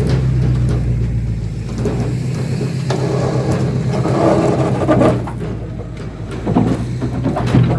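A vehicle engine running steadily under load, with a few sharp knocks and clanks in the second half.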